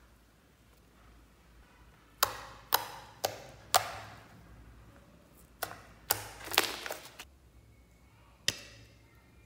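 Fingers poking into soft pink slime, making sharp popping clicks as trapped air bursts: four about half a second apart, then a second cluster a couple of seconds later, and one more click near the end.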